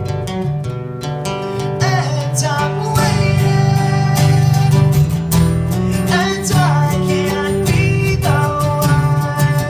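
Acoustic guitar strumming in a live rock band performance, with a voice singing over it at times.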